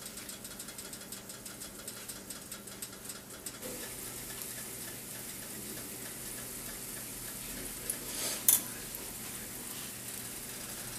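Breaded vegetarian sausage pieces frying in hot oil, with fast irregular crackling at first that settles into a steady sizzle. One sharp clack about eight seconds in.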